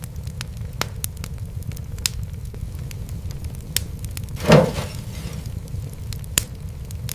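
Wood fire crackling: scattered sharp pops over a steady low rumble, with one louder, longer crackle about four and a half seconds in.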